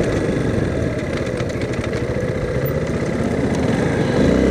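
2008 Honda CRF230L's single-cylinder four-stroke engine running at low road speed, heard from inside the rider's helmet. Near the end the revs climb.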